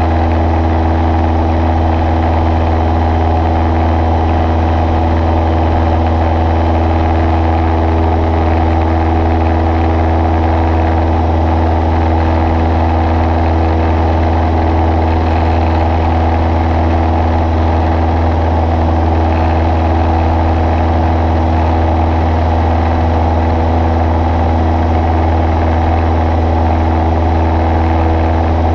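Cessna 140's piston engine and propeller droning steadily in flight, heard inside the small cabin: a strong low hum with several steady tones above it and no change in pitch or level.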